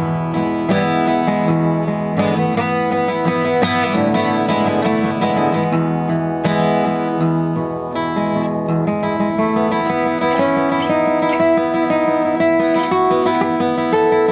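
Acoustic guitar music, notes and chords playing continuously.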